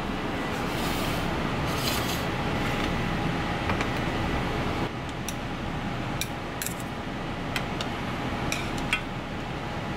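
Light clinks and taps of chopsticks against a metal bowl and an aluminium pan, scattered through the second half, over a steady kitchen background noise.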